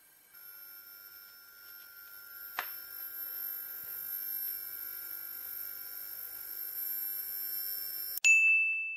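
High-voltage arc burning between the lead-in wires inside a mercury vapour lamp's bulb, driven by an ignitor: a steady high-pitched whine of several pure tones, with one sharp click about two and a half seconds in. The arc is melting and burning out the lead-in wire. The whine cuts off suddenly about eight seconds in, and a loud ringing ding follows.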